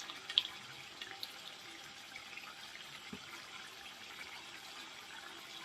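Tomato-chilli chutney sauce cooking in a kadai: a faint, steady bubbling hiss, with a few light clicks.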